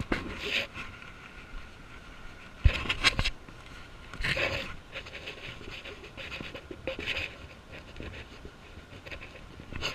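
Irregular puffs and rustles close to the microphone, one every second or two, with a few sharp knocks about three seconds in.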